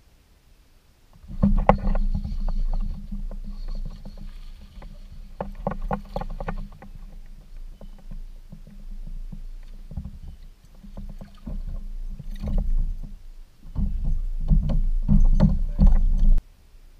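Handling noise carried through the plastic hull of a Jackson Kayak Coosa HD fishing kayak: a low rumble with a run of knocks and clicks as the angler shifts in the seat and handles his rod. It starts suddenly about a second in, eases for a moment midway, grows louder near the end, then cuts off.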